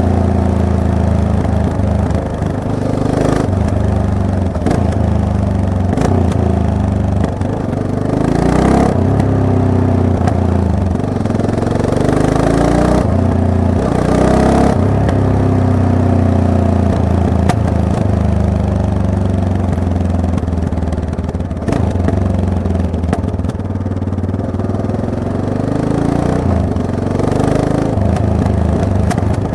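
Yamaha MT-03 motorcycle engine under way, its pitch rising and falling again and again as the rider opens and closes the throttle and changes gear, with a few short sharp noises in between.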